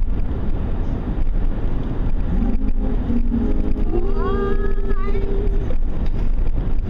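Steady low road rumble inside a moving car's cabin. From about two seconds in, a faint held tune rises in the middle and stops near the end.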